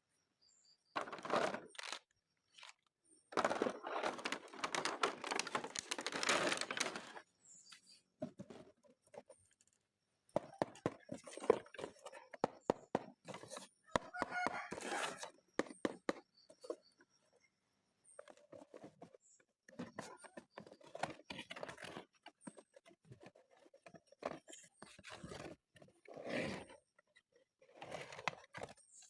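Toy packaging rustling and tearing, with clicks and knocks from plastic toys being handled, in irregular bursts separated by short pauses.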